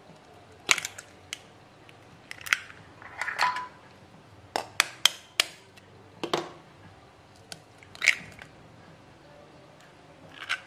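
Duck eggs being tapped and their shells cracked open by hand, a scattered series of sharp clicks and knocks, several close together about halfway through.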